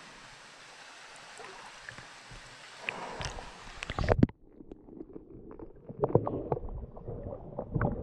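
Flowing water hissing, then splashing that peaks as the microphone goes under the surface about four seconds in. After that the sound is muffled underwater noise of people wading, with gurgles and scattered knocks.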